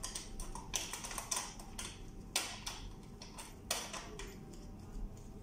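Irregular light clicks and taps of gloved hands handling the plastic lamp compartment door and panel of a Pentax EPK-i7010 video processor, about eight in all, over a faint steady hum.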